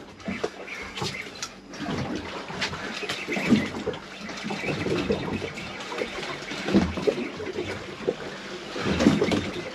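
Water lapping and sloshing against a boat's hull, with irregular gurgles and slaps every second or so over a steady hiss.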